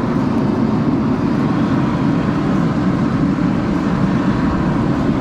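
Geothermal steam vent blasting a strong jet of steam from the ground, heard at close range as a loud, steady hiss and rush.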